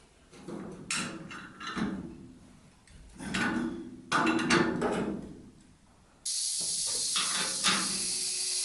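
Metal knocks and clanks as a compressed-air fitting is worked on. About six seconds in, a steady hiss starts suddenly as compressed air is let into the air horn's supply line to pressurize it.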